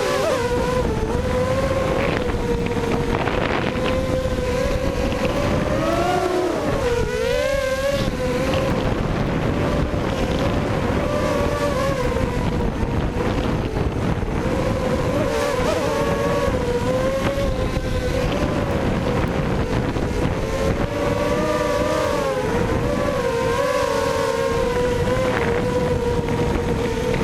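Brushless motors and propellers of a 280-size FPV quadcopter on a 4S battery, a steady buzzing whine whose pitch wavers up and down with the throttle, dipping briefly about six to eight seconds in. Wind rushes over the microphone underneath.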